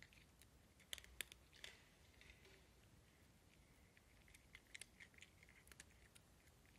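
Cat crunching dry kibble: faint, irregular crunches, a few sharp ones about a second in and a quicker cluster between about four and six seconds in.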